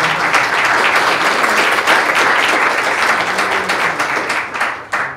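Audience applauding, a dense crowd of hand claps that starts strongly and tapers off near the end.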